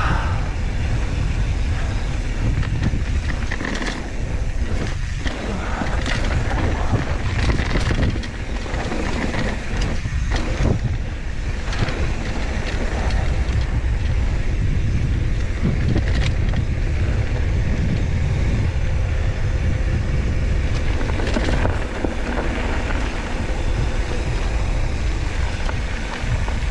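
Mountain bike descending a dirt trail: tyres rumbling over the dirt and wind buffeting the camera microphone, with occasional knocks as the bike hits bumps.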